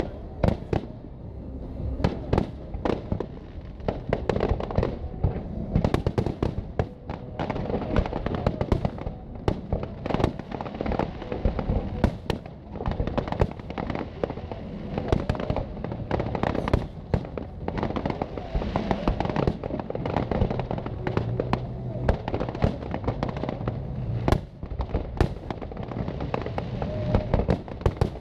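Fireworks display: a dense barrage of aerial shells bursting in rapid, irregular succession, sharp bangs mixed with crackling, with no letup.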